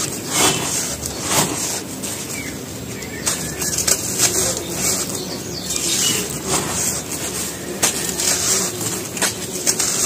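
Dry cement crumbled by hand and poured back onto the pile: a gritty, dusty rustle of falling grit and powder, broken by sharper crunches about every second or two as lumps break.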